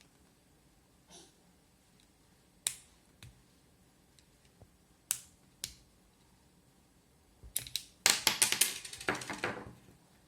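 Small sharp plastic clicks from a Mazda 6 key fob being handled during a battery change, a few single clicks, then a quick run of clicks and rattles near the end.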